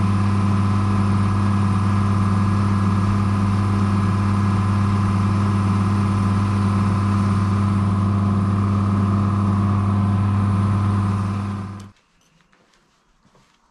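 A motor-driven machine running with a steady hum and a hiss over it, then shutting off sharply about twelve seconds in, leaving a few faint clicks.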